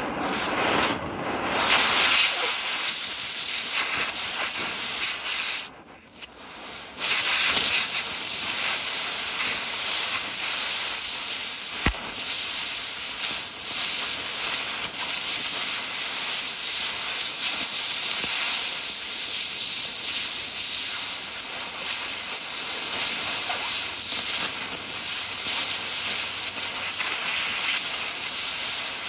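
Oxy-acetylene cutting torch hissing steadily as it cuts through a rifle's steel parts. The hiss drops away for about a second some six seconds in, then comes back, and there is a single sharp click about twelve seconds in.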